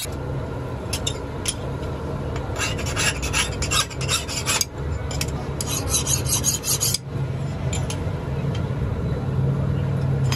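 Hand file rasping across the steel edge of an axe head in quick repeated strokes, in two runs about three and six seconds in, over a steady low hum.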